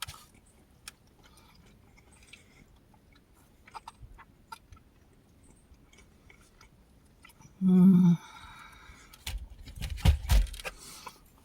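Someone eating: faint chewing with small mouth clicks, a short hummed 'mm' about eight seconds in, then a cluster of low bumps and crunchy clicks about two seconds later.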